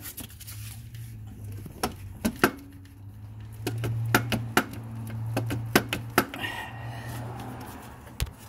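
Irregular sharp metal knocks and clinks as a BMW Z3's alternator is wiggled loose from its mounting bracket, with a brief scrape about two-thirds through. A low steady hum runs underneath.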